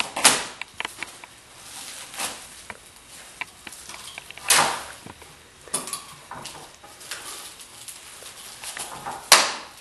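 Wooden bed slats being unbundled and handled: scattered light taps and clicks, with a few louder wooden knocks.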